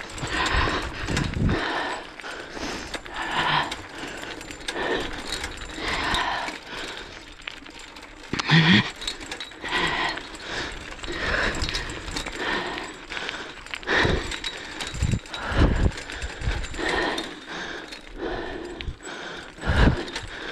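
A runner going fast behind a pulling sled dog: hard breathing and footfalls on a gravel trail, coming in a steady rhythm about once a second, with the line's metal clips jingling.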